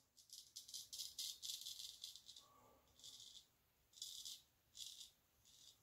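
Straight razor scraping stubble through shaving lather on the upper lip: a quick run of short, faint scraping strokes, then a few separate strokes.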